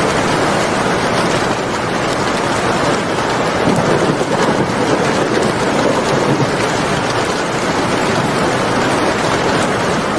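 Heavy rain falling steadily, with a low rumble swelling in the middle.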